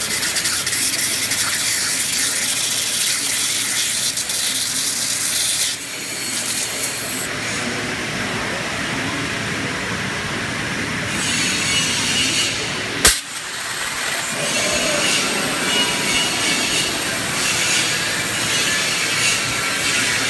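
CNC waterjet cutter's high-pressure jet cutting a metal sheet: a loud, steady hiss that eases for a few seconds in the middle, with one sharp click a little past halfway.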